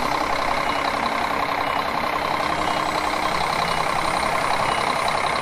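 A heavy machine's engine running steadily, an engine sound effect dubbed over a toy backhoe loader being pushed by hand.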